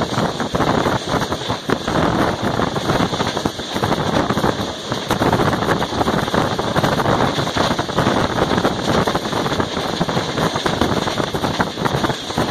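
Passenger train running at high speed, heard from on board: a steady, loud rush of wheel-on-rail noise and wind.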